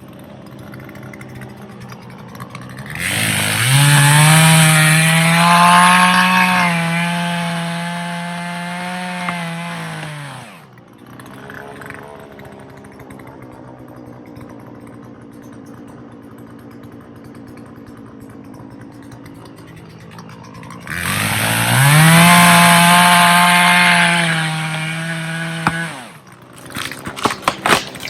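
Two-stroke chainsaw idling, then run up to full throttle for a cut of several seconds, dropping back to idle, and revved into a second cut near the end. A run of sharp cracks follows in the last second.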